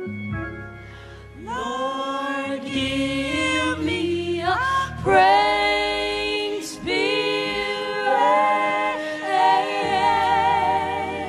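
Gospel vocal group singing in close harmony with a high soprano part on top. The voices come in strongly about a second and a half in, sliding into sustained notes, and hold notes with vibrato near the end.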